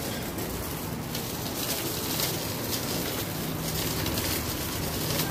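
Folding wire shopping trolley rolling over pavement: a steady rolling noise with faint irregular clicks and rattles from the wheels and wire basket.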